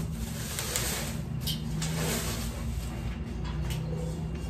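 Bubble wrap rustling and crinkling as it is pulled off a pot, with a few sharp crackles, over a low steady hum.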